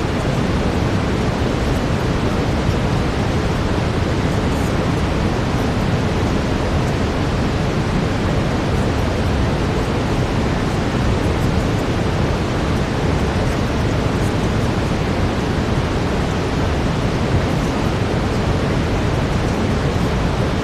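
Steady brown noise: a deep, even hiss, strongest in the low end, unchanging throughout.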